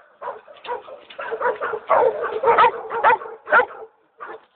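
Dogs barking repeatedly in quick, short barks, several a second at times, with a brief pause near the end.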